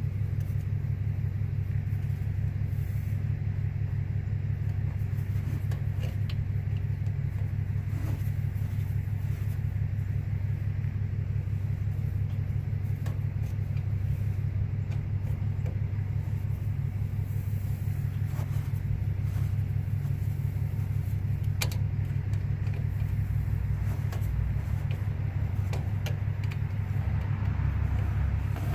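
Diesel engine idling steadily, with a few light clicks and taps over it.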